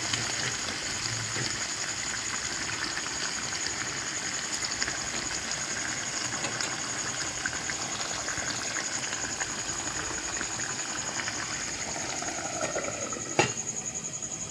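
Chicken curry cooking in a pan with a steady sizzling, bubbling hiss, and one sharp knock, like a spoon striking the pan, near the end.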